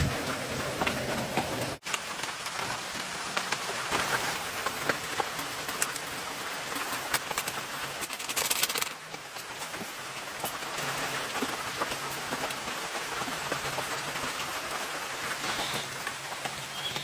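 Heavy rain falling, a steady hiss dotted with many separate drops ticking on surfaces; it cuts out for an instant about two seconds in.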